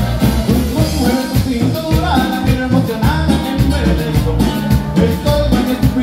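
Latin dance music playing loudly, with a steady drum beat, bass and a singing voice.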